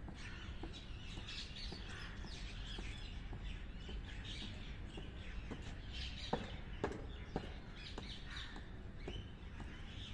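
Many birds chirping and calling, with some cawing, over a steady low outdoor rumble. A few sharp knocks stand out a little past halfway, three in under a second and a half.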